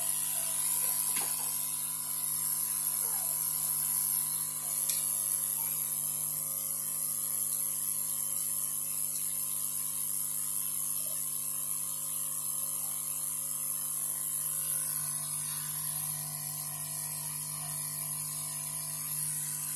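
Hot air gun blowing steadily with a high whine and hiss, heating a small IC on a motherboard for rework.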